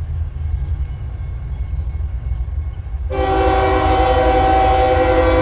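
Diesel freight locomotive rumbling steadily as it approaches; about three seconds in, its air horn sounds, a loud chord of several steady tones held to the end.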